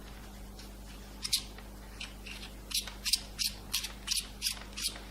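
Handling noise from the microphone's parts and packaging: a couple of sharp clicks, then an even run of short scratchy rattling strokes, about three a second, from about halfway through.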